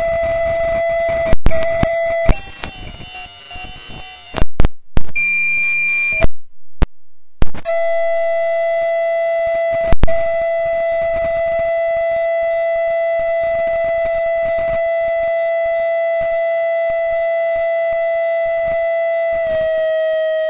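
Loud audio feedback: a steady shrill tone with overtones, broken by sharp clicks and brief cutouts in the first several seconds, then holding steady with a slight drop in pitch near the end.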